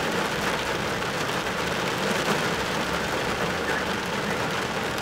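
Steady rain falling on a car's windshield and roof, heard from inside the car.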